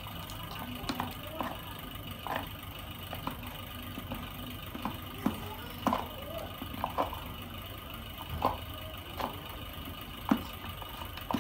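Spoon stirring a thick glue-and-shampoo slime mixture in a container, with irregular clicks and scrapes of the spoon against the sides, over a steady background hum.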